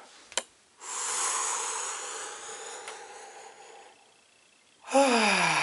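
A woman's slow, deliberate breath close to the microphone, lasting about three seconds and fading away, after a small click. Near the end comes a louder voiced sigh that falls in pitch.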